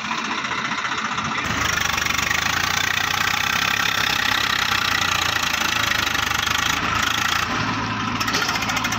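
Swaraj 744 FE tractor's diesel engine revving up about a second and a half in, then running hard under a heavy load, with a knocking diesel clatter, as it hauls a laden trolley hard enough to lift its own front wheels off the ground.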